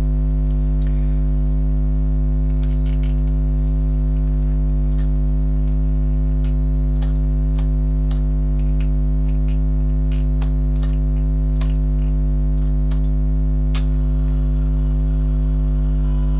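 Steady low electrical buzzing hum, the loudest sound throughout, with a few sharp small clicks from camera buttons and handling scattered across the middle and later part.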